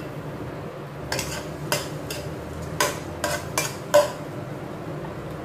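Metal spoon stirring chopped onion and garlic in oil, scraping and knocking against a nonstick pot. There are about half a dozen short strokes over some three seconds, and the last is the loudest.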